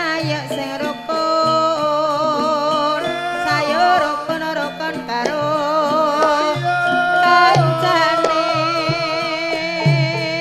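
Javanese gamelan-style music for a ledek performance: a high female singing line with a wavering vibrato over sustained metallophone tones and repeated low kendang-like drum strokes.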